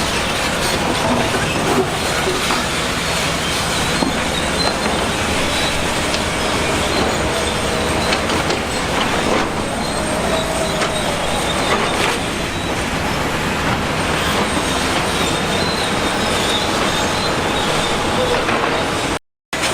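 Crawler bulldozer running, its steel tracks squealing and clanking over a steady mechanical din. The sound cuts out briefly near the end.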